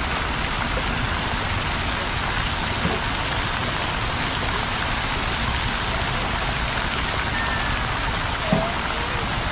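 Fountain water splashing steadily into a pool, an even rushing hiss, with a few faint distant voices now and then.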